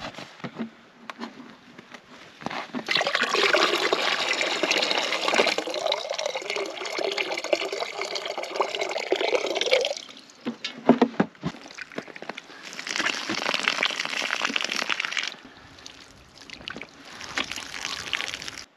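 Water poured from a stainless steel kettle into a plastic cooler, a long steady pour of several seconds, followed by a few knocks and a second, shorter pour. Near the end there is splashing as water is thrown on a face from cupped hands.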